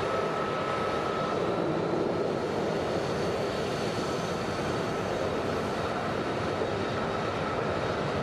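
Several F-35A fighter jets' F135 turbofan engines running at taxi power: a steady jet rush with a faint high whine held above it.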